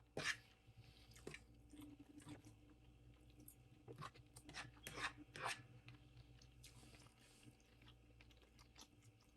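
Close-up chewing of food, with scattered sharp, crisp crunches: one just after the start and a cluster about four to five and a half seconds in.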